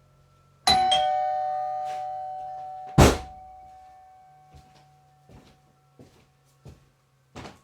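Old electromechanical doorbell chime: the plunger strikes a bar about a second in, and its clear tone rings and slowly fades. A second, louder strike comes about three seconds in. A few faint clicks follow near the end.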